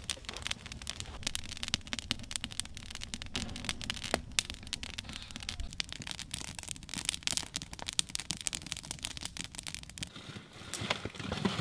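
Campfire of small dead pine branches and logs crackling, with many sharp irregular snaps.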